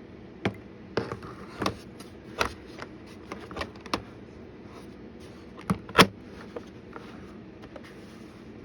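Kitchen knives and their case being handled: irregular sharp clicks and knocks, the loudest a double knock about six seconds in.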